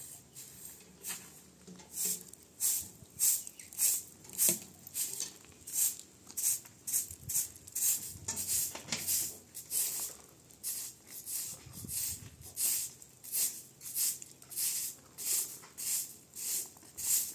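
A broom sweeping in quick, even strokes, about two to three swishes a second.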